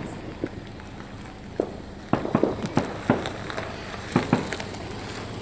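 Fireworks and firecrackers popping in the distance: a few scattered sharp pops, then an irregular run of cracks about two seconds in.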